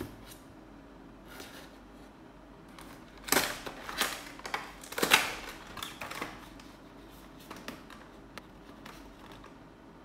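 A single sharp snip of scissors, then from about three seconds in a few seconds of crackling and rustling as a thin cardboard box is cut and pulled open and unfolded flat. A few faint clicks follow near the end.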